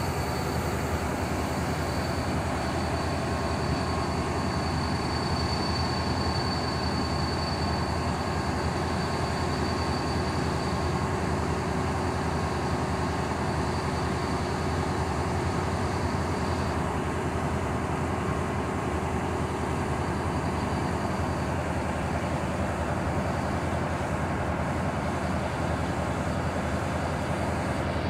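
Siemens Charger diesel locomotive standing and idling: a steady engine hum, with a faint high whine that fades out partway through.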